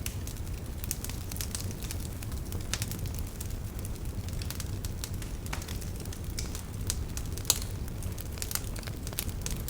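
Fire burning in a fireplace, crackling with frequent irregular sharp pops over a steady low rumble. One louder pop comes about seven and a half seconds in.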